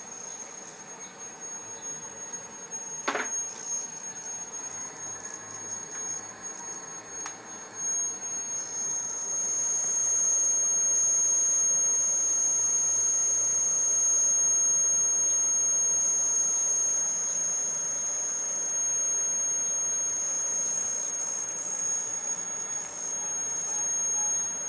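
A steady high-pitched electronic whine from a solar inverter, growing louder about a third of the way in, with one brief chirp about three seconds in.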